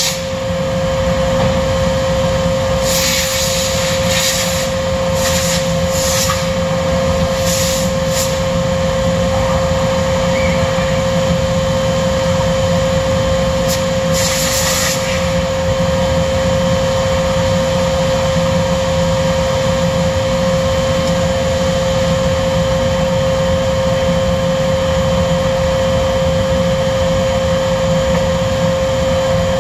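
Computer-controlled panel saw running in automatic mode, a steady loud machine roar with a constant whine and the rush of air through its dust extraction. A few short hisses break in during the first half.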